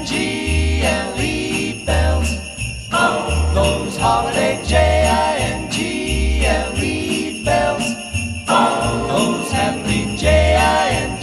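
Christmas music with sleigh bells jingling throughout over a shifting melody and a steady bass beat.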